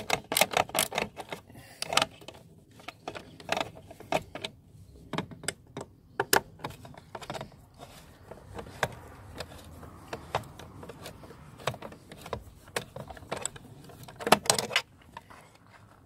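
Irregular clicking and rattling of a star (Torx) screwdriver turning and working screws out of the plastic mirror housing, with a quick run of clicks at the start and another burst near the end.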